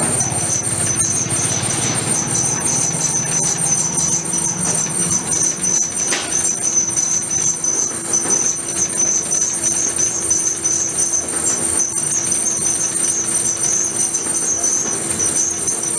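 Pillar drill press running with its bit cutting a bolt hole through a steel flange: a steady motor hum under a high-pitched cutting whine that flickers rapidly.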